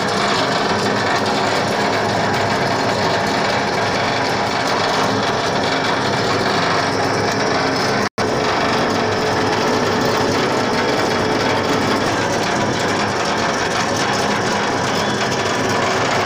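Steady, loud mechanical rattling and whirring of concrete casting machinery, cutting out for an instant about eight seconds in.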